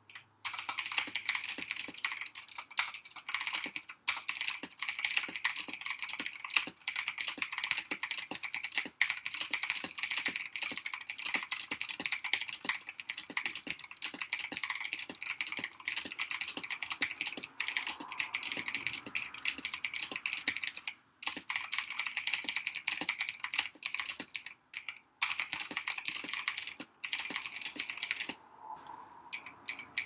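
Drevo Gramr 84 mechanical keyboard with clicky Outemu Blue switches being typed on quickly and continuously, a dense run of sharp clicks that thins out to a few single keypresses near the end.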